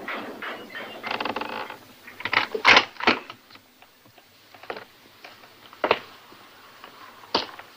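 Creaking, scraping and clicking, with the loudest sharp knocks about a third of the way in. Single knocks follow every second or so.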